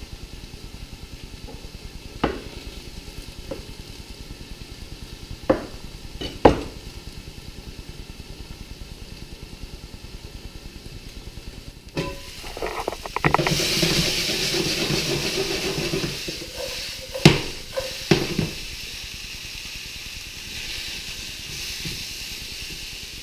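A hot pan sizzling quietly, with a few sharp knocks of a utensil against it. About twelve seconds in, something goes into the pan and the sizzle jumps suddenly to a loud hiss, easing off after a few seconds to a steadier sizzle, with two more knocks.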